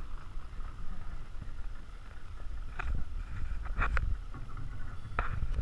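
Water sloshing and splashing around a small boat's hull in shallow water, with a few short splashes about three, four and five seconds in over a low rumble of wind on the microphone.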